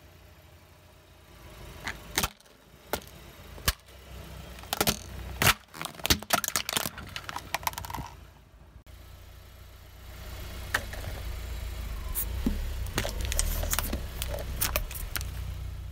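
Hard plastic balloon hand pumps cracking and snapping under a car tyre: a string of sharp cracks over several seconds. Then a steady low rumble of the tyre rolling over Play-Doh tubs, with a few soft clicks and crunches.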